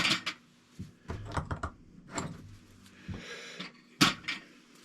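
Small metal hand tools clicking and clattering as drivers and sockets are picked up and tried one after another on an RC truck's wheel nut. There is a short scraping stretch about three seconds in and a sharp click about a second later.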